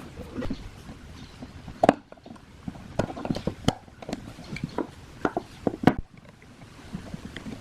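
Irregular clicks and knocks of hand work on old fan parts, the loudest about two seconds in and just before six seconds.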